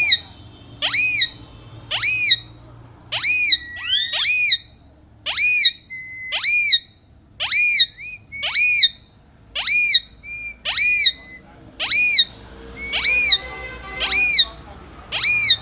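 Parrot calling over and over, about once a second: each call is a quick rising sweep into a short, arched, high-pitched squawk, with a few brief level whistled notes between the calls.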